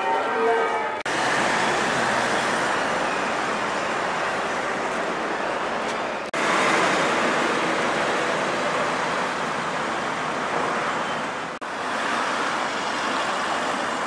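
Steady road traffic noise from cars passing on a town street, breaking off abruptly and resuming about a second in, around six seconds in and near twelve seconds. It opens with about a second of pitched ringing.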